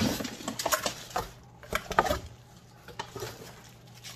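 Unpacking cookware: plastic wrap crinkling and cardboard rustling, with light knocks of a saucepan against the box. The crackling is busiest in the first two seconds, then thins to a few scattered crinkles.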